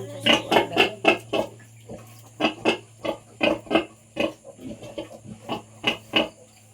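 Pigs grunting in a quick series of short calls, several a second, fewer near the end, over a steady low hum.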